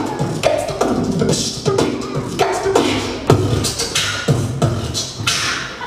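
Beatboxing: a rhythmic vocal drum pattern of deep kick-drum thumps and short hissing snare sounds, amplified through a headset microphone.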